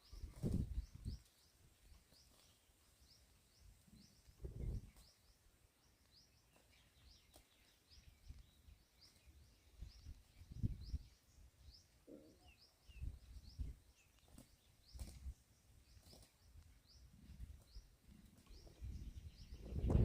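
Quiet rural outdoor ambience: short, high chirps repeating in runs, with irregular low rumbles and thumps rising over them several times.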